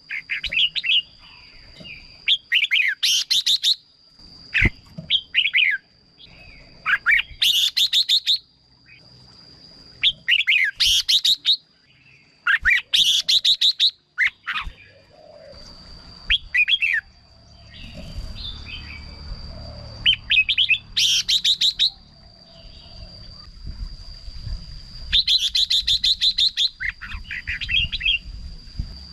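Red-whiskered bulbul singing: short, bright, fast-warbling song phrases repeated every two to four seconds. A thin, steady high-pitched whine runs underneath, and a low rumble comes in about halfway through.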